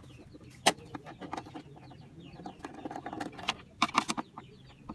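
Screwdriver tip clicking and scraping in the head of a stock fairing bolt as it is turned out, a few sharp metal clicks about a second in and again near the end.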